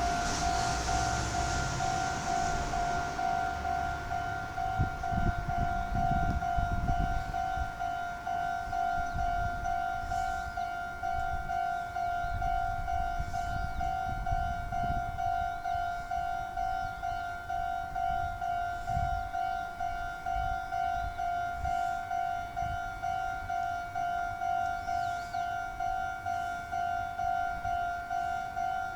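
Japanese railway level-crossing alarm bell ringing its electronic two-tone ding over and over at a steady, even beat, warning that a train is approaching.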